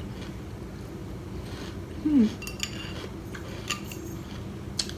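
A spoon clinking lightly against a bowl of cereal and milk, a few separate clinks, with a short low falling hum about two seconds in.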